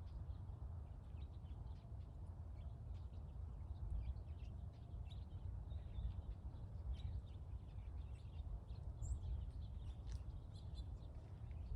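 Small birds chirping and calling in many short, scattered notes over a steady low rumble.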